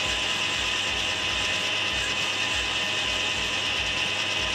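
Metal lathe running with its chuck spinning while turning a brass part: a steady mechanical whir with a high whine.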